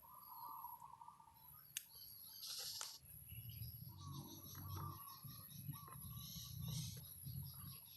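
Small birds chirping and twittering, with a sharp click about two seconds in and a few fainter clicks later, as small neodymium magnetic balls snap together.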